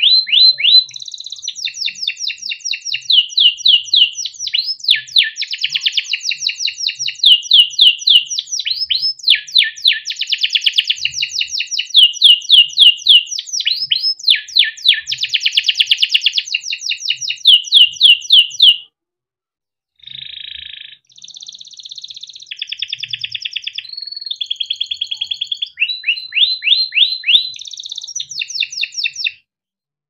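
Male red-factor canary singing a long, loud, high-pitched song of rapid repeated trills and rolls. It breaks off about two-thirds through, then resumes with softer phrases that stop shortly before the end.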